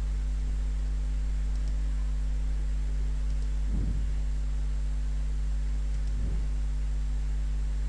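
Steady low electrical hum with a few faint overtones, typical of mains hum picked up by the recording microphone. Two faint, brief low sounds come about four and six seconds in.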